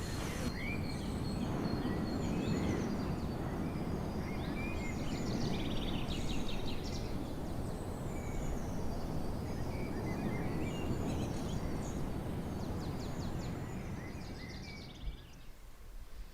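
Small birds chirping and trilling again and again over a steady low rushing noise. The rushing drops away near the end.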